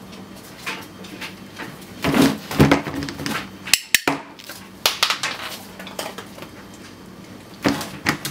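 Grey plastic swing-lid rubbish bin knocking and clattering as a dog noses and pushes at its lid, a scatter of sharp knocks and clicks that is busiest about two to three seconds in.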